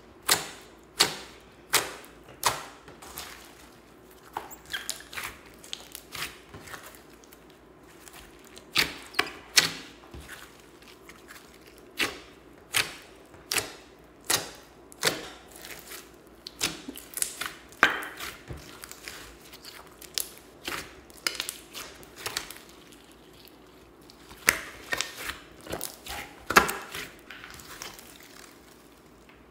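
Hands kneading and squeezing a large mass of glossy slime: irregular sharp, wet clicks and pops as trapped air is squeezed out, sometimes several a second, with short lulls between.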